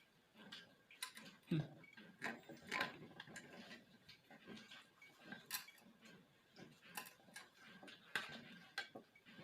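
Grind-size knob of an electric burr coffee grinder being turned, giving an irregular series of light clicks as it moves through its settings.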